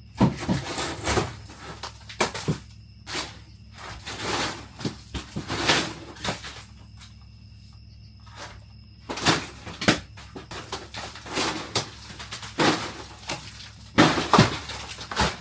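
Irregular crunching and scraping bursts as old RV roof material is pried and torn out by hand.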